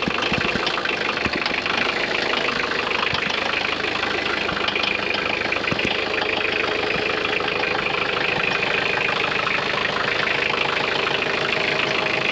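Diesel engine idling steadily just after a cold start in freezing weather.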